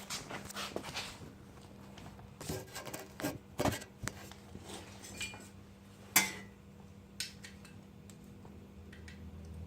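Scattered clinks, taps and rubbing of small metal parts and tools being handled on a motorized bike engine, with a sharp tap about six seconds in, over a faint steady hum.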